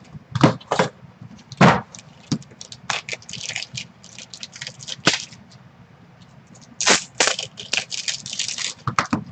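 Plastic wrapping on a trading-card repack box being torn open and crinkled, with sharp cracks and snaps, the loudest about half a second and just under two seconds in, and crinkly stretches in the middle and near the end as the cards inside are handled.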